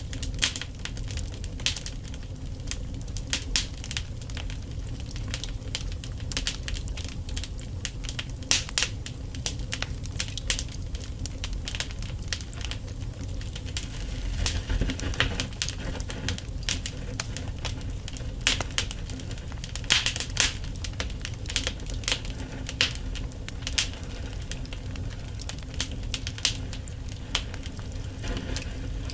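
Wood fire burning in a fireplace: frequent sharp, irregular crackles and pops over a steady low rumble of the flames.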